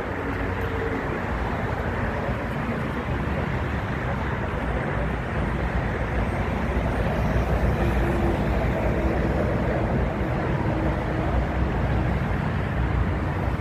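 Steady rumble of a distant jet airliner's engines as it moves on the ground, mixed with wind buffeting the microphone.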